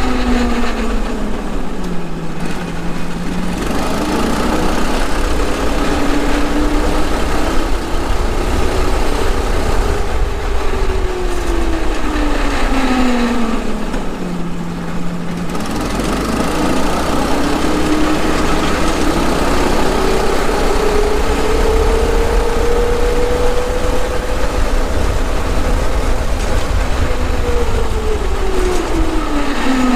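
Go-kart's single-cylinder Tillotson 212 engine under way, its pitch swinging up and down as the throttle is worked. It drops to idle twice, a few seconds in and about halfway, and climbs back to high revs after each dip before falling again near the end.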